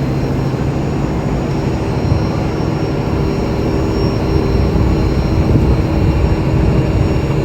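Heavy diesel machinery running steadily, its engine holding a constant hum.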